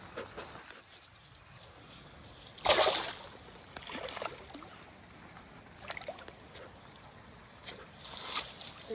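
A trout splashes as it kicks free of the hands into shallow river water, one loud splash about three seconds in, followed by a few smaller splashes and sloshes at the water's edge.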